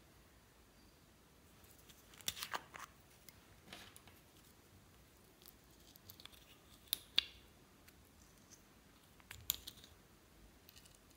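A few faint, scattered small plastic clicks and handling taps as a ball-shaped plastic cosmetic pot is opened and its contents scooped out with a small plastic spatula; the sharpest pair of clicks comes about seven seconds in.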